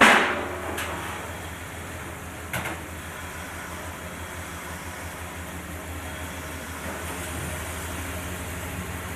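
A caster wheel from a four-post car lift dropping out onto the shop floor with one loud clank, then two lighter knocks about one and two and a half seconds later, over a steady low hum.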